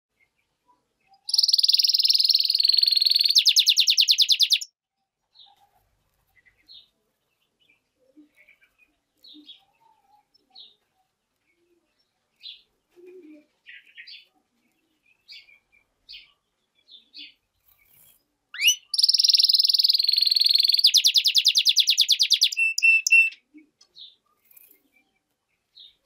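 European goldfinch × canary hybrid singing: two loud song phrases, one about a second in and another past the middle, each a few seconds of buzzy warbling that breaks into a rapid trill. Soft, scattered chirps fill the gap between the phrases.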